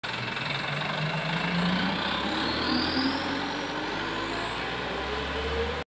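Dump truck driving off along the road, its engine note rising steadily as it gathers speed, over road and tyre noise. The sound cuts off abruptly near the end.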